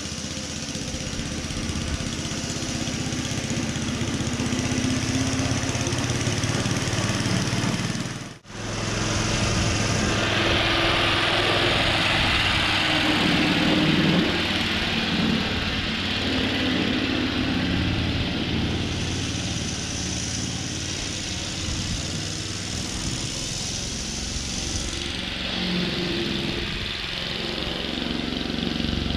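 Small petrol engine of a vintage Ransomes Marquis cylinder lawn mower running steadily, with a very brief break about eight seconds in.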